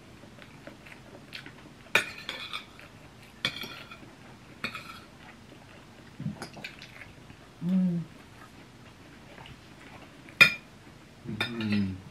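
Metal forks clinking and scraping on ceramic plates as people eat: several separate sharp clinks with a short ring, the loudest about ten seconds in. A short low hummed voice sound comes in the middle and another near the end.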